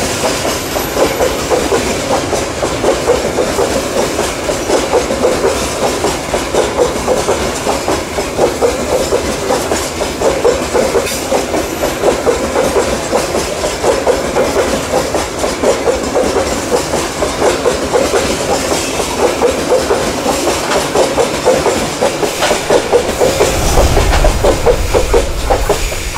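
Loaded coal wagons of a long freight train rolling past, their steel wheels clattering steadily on the rails. A deeper rumble swells near the end.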